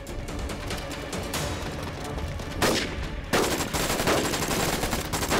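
Rapid, dense gunfire, many shots overlapping in volleys, starting about a second in and thickening into near-continuous fire after about three seconds, over background music.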